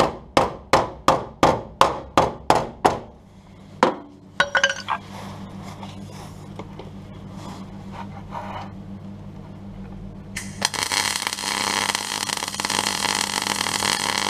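Hammer blows on sheet steel, about three a second, for the first three seconds, over a steady low hum. From about ten seconds in, a MIG plug weld on the steel sill panel makes a steady harsh hiss for about four seconds, then cuts off.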